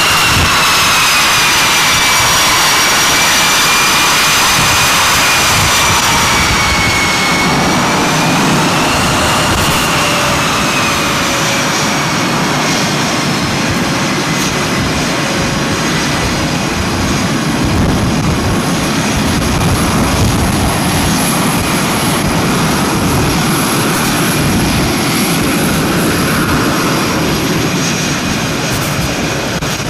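Boeing F/A-18's twin jet engines running on deck: a loud, steady roar with a whine that slides down and wavers over the first several seconds, then a steady high whine.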